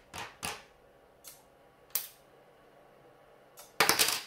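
Several sharp clicks of steel scissors against the iron-core tip of a CRT degaussing wand run as a 12-volt electromagnet, then a quick clatter near the end as the scissors drop onto the worktop.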